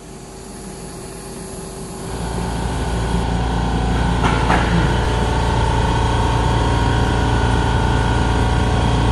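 Steady mechanical hum of running machinery, with several steady tones, getting louder about two seconds in. Two sharp clicks about four seconds in.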